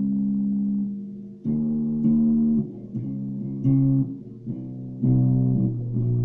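Ibanez Jumpstart four-string electric bass played as a slow line of single plucked notes. A held note fades out in the first second, then new notes are struck about every half second to second. The recording is thin, made through a phone's microphone.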